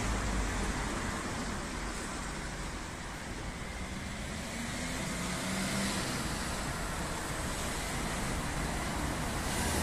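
Steady road-traffic noise: an even wash of passing vehicles with no single standout event.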